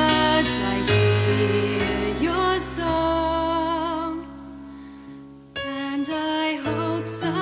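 A musical theatre song: singing with vibrato over instrumental accompaniment. About four seconds in, the music thins to a quiet held chord, then comes back in strongly about a second and a half later.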